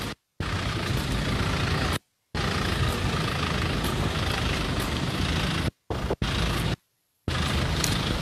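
Steady street noise of road traffic, broken several times by abrupt drops to dead silence where the recording is cut.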